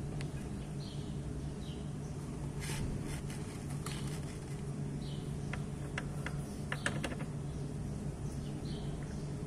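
Clicks and light knocks from hands handling the drive belt and pulleys in the open belt-drive case of a Vespa S50 scooter, clustered through the middle and loudest near the end of that stretch. Underneath is a steady low hum, with short high chirps repeating in the background.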